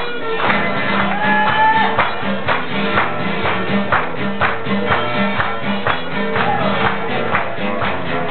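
Live music from two acoustic guitars strummed to a steady beat, with a voice singing along.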